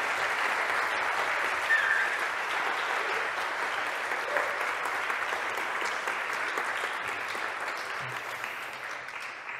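Audience applauding, the clapping gradually thinning out toward the end.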